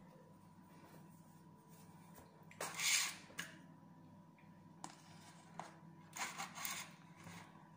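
Brief rustles and crinkles of a paper wrapper being handled, the loudest about three seconds in and a few smaller ones near the end, over a faint steady hum.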